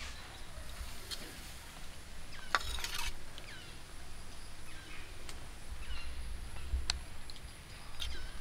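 A steel spoon clinking and scraping against a steel bowl of fish curry, loudest as a quick cluster of clicks about two and a half seconds in, with a few single clinks later. Birds chirp briefly throughout, over a low steady rumble.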